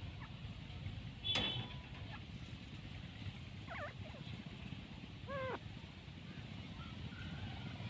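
Grey francolins (desi teetar) giving two short, soft, wavering calls about midway through, over a steady low rumble. A brief sharp sound about a second and a half in is the loudest thing.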